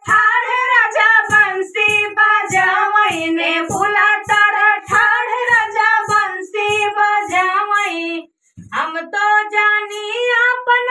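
A high female voice singing an Awadhi dehati folk dance song over a steady drum beat, with a short break about eight and a half seconds in.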